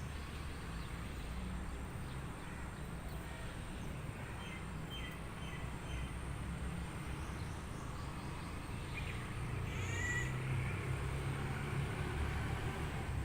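Forest ambience: a steady low rumble and hiss, with a few short bird chirps about four seconds in and another brief bird call about ten seconds in.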